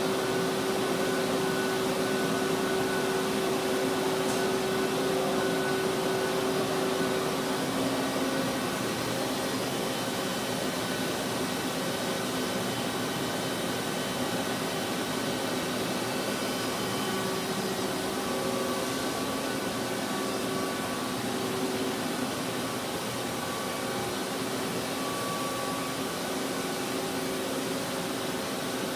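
Tong-Tai Topper TVL-8D CNC vertical lathe, powered up and running with a steady mechanical hum. Its strongest pitched hum fades about eight seconds in.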